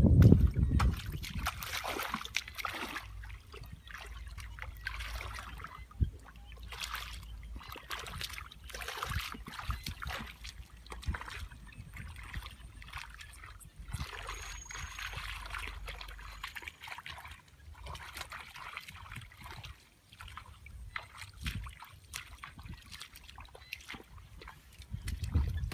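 Hands splashing and sloshing in shallow muddy water: many short, irregular small splashes as the water and mud are worked through by hand.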